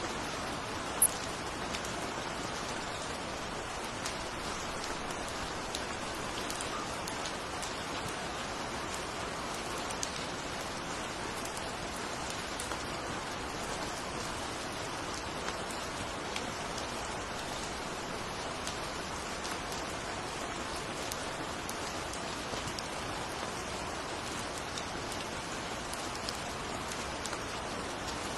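Steady rain falling, with scattered drop ticks and one sharp, louder drop about a second in.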